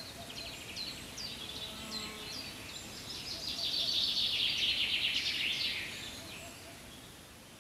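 Birdsong: a series of short, high chirps that drop quickly in pitch, then a long rapid trill in the middle, the loudest part, which fades away over the last couple of seconds.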